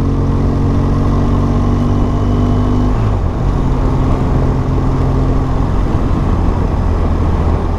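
BMW R1200GS boxer-twin engine running at a steady cruise under heavy wind and road noise. Its note shifts briefly about three seconds in.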